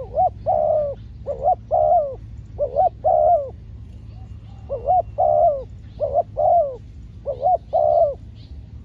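Spotted dove cooing: about six short phrases of two or three low coos each, one every second or so, over a steady low rumble.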